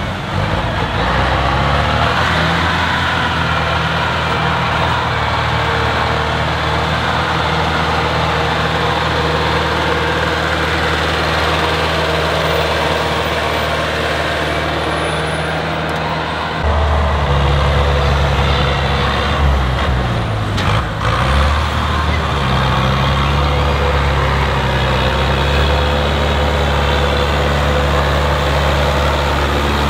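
Tractor diesel engines running hard under load: first the engine of a yellow ZTS forestry skidder pulling steadily, then, after a sudden change about 17 seconds in, the louder, lower-pitched engine of a red tractor.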